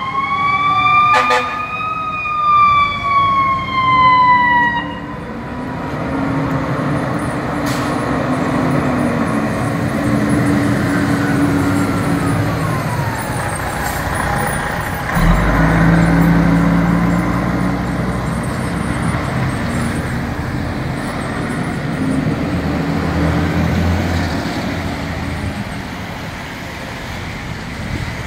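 American LaFrance fire engine responding under siren: the siren wails up and then falls slowly over the first few seconds and winds down again about twelve seconds in, over the truck's steady engine drone. About halfway through the engine sound swells suddenly loud and low as the truck passes close.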